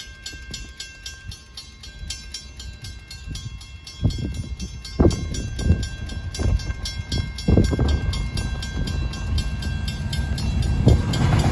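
Level crossing warning bell ringing in rapid, even strokes while approaching Pacific National diesel locomotives bring in a low rumble that grows louder. Several loud low thumps come partway through.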